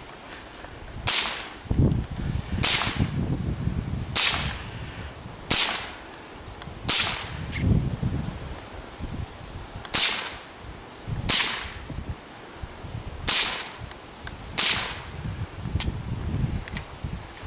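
.22 LR rifle shots fired one at a time at a steady pace, roughly one every second and a half, about nine in all with a short pause partway through.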